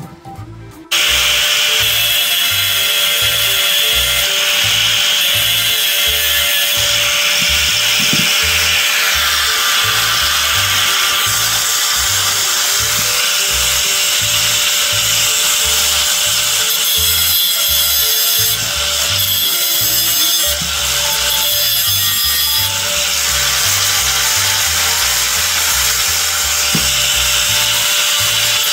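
Angle grinder running steadily against a steel motorcycle transmission gear, a loud grinding hiss with a steady motor whine, starting about a second in. Music with a steady bass beat plays underneath.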